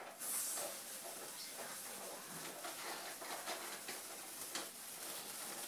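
Cake sparklers fizzing and crackling faintly, with a brief burst of hiss just after the start.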